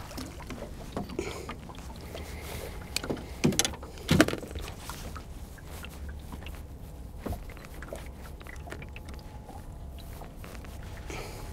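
Steady low rumble of wind and water around a small fishing boat, with a few sharp knocks about three and a half and four seconds in as the landing net and gear are handled against the boat.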